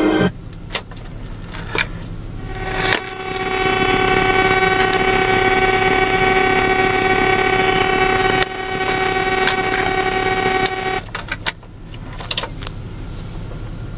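A car cassette deck's tape playback stops, followed by the clicks of the tape mechanism as the cassette is ejected. A steady pitched tone then holds for about eight seconds. It cuts off, and a cluster of clicks and clunks follows as a cassette is pushed back into the deck.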